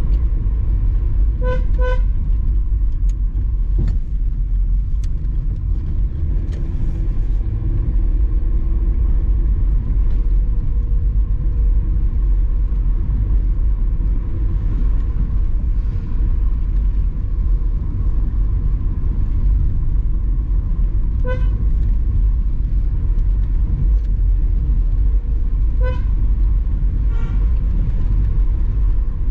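Steady low rumble of a car driving along a winding road, with short car horn toots: a quick double toot about two seconds in, then single toots past the middle and near the end.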